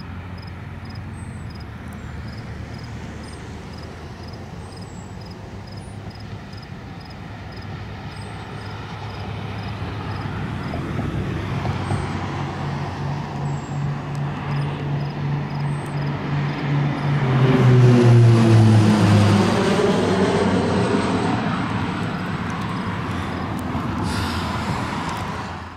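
Small propeller airplane taking off and passing by: its engine drone builds from about ten seconds in, is loudest around eighteen seconds, where the pitch drops as it goes past, then slowly falls away.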